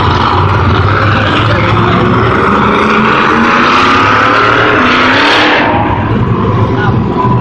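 Monster truck engine revving hard as the truck drives, its pitch climbing for about five seconds before falling away.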